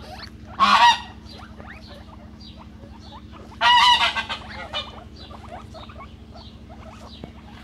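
Farmyard waterfowl calling: two loud, harsh honks, one just under a second in and one about three and a half seconds in, each lasting about half a second. Faint short squeaks and chirps sound between them.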